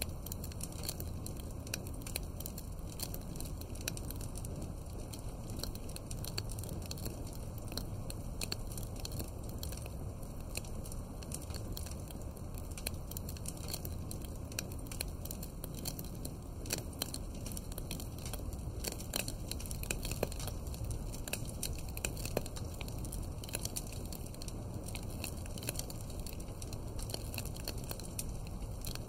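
Wood fire crackling, with frequent small snaps and pops over a steady low rumble.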